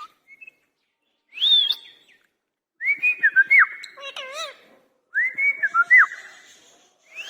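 Indian ringneck parrot whistling: three short phrases of swooping, rising-and-falling whistled notes, the second and third longer, with quick up-and-down glides.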